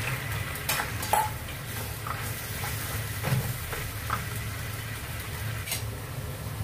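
Pork feet, onions and peanuts sizzling in a frying pan while being stirred with a slotted spatula, with a few sharp clicks and scrapes of the spatula against the pan over a steady low hum.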